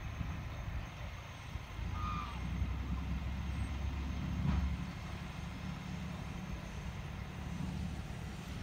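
Low, steady diesel engine rumble of a river ferry loaded with trucks as it comes in toward the landing, heavier for a few seconds in the middle. A brief high chirp sounds about two seconds in.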